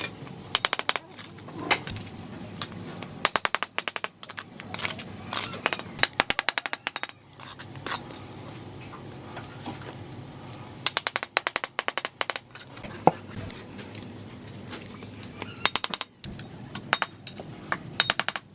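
Steel trowel tapping bricks down into wet mortar in quick runs of many light taps, bedding each brick in place.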